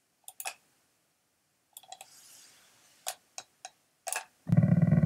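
A few sharp computer mouse clicks, then near the end a loud, steady, buzzy synthesized tone with many harmonics starts: image-to-sound software playing the poem's selected pattern of marks as sound.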